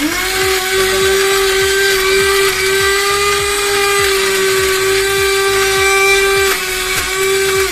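Small electric mini grinder running steadily, its blade grinding hard garlic crackers: a loud, even motor whine that starts abruptly, dips briefly about six and a half seconds in, and cuts off at the end.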